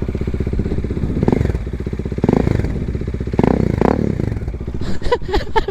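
Bajaj Dominar 400's single-cylinder engine idling through a Yoshimura exhaust pipe with its silencer insert removed, blipped up in revs three times. The exhaust is loud.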